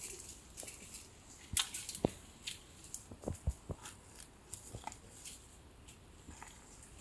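Goat grazing, tearing at grass and weeds: faint irregular snaps, clicks and rustles, a few each second.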